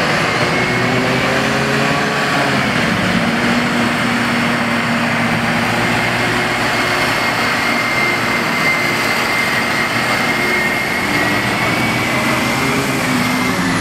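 Heavy diesel engines of a CAT 992G wheel loader and a CAT 777C haul truck running steadily as the truck drives past, with a steady high whine over the engine drone.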